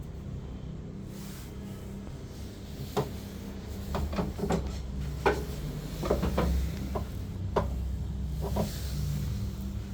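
Irregular knocks and clicks of something being handled, about a dozen spread through, over a steady low hum.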